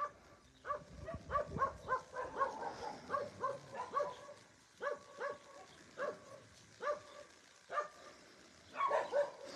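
A dog barking steadily at a distance, short repeated barks about two a second, with a brief pause a little before the end.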